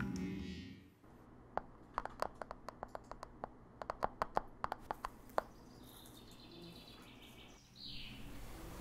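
Music fades out at the start. Then come a couple of dozen sharp, irregular clicks and taps over about four seconds, followed by faint high bird chirping near the end.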